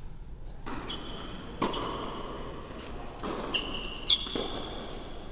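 Tennis rally on an indoor hard court: racket strikes on the ball and the ball's bounces echo in the large hall. Several shoe squeaks are heard between shots. The loudest hit comes about four seconds in.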